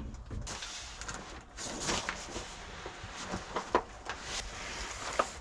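Faint scattered knocks and scrapes with a couple of short squeaks, as hands grip and strain at a stuck spin-on oil filter, over a low steady workshop rumble.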